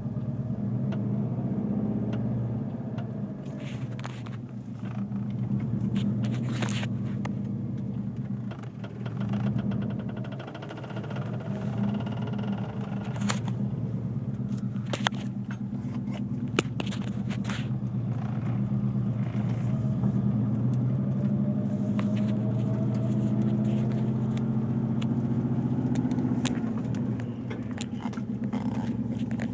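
Subaru WRX's engine running with a steady low note that rises and falls a little, with irregular sharp clicks and rattles over it: a very bad-sounding noise that the owner traced to something small and simple, nothing serious.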